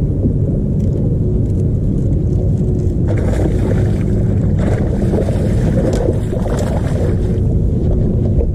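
Strong wind buffeting the camera microphone, a steady low rumble with a faint steady hum under it. From about three seconds in, splashing as a hooked fish thrashes at the surface beside the boat.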